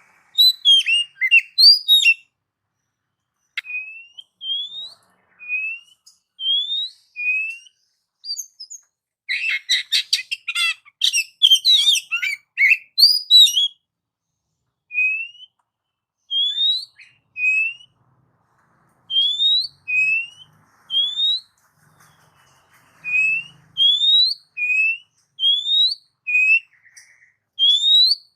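Oriental magpie-robin (kacer) singing: a string of short, rising whistled notes, with a dense burst of rapid chattering notes about nine to thirteen seconds in.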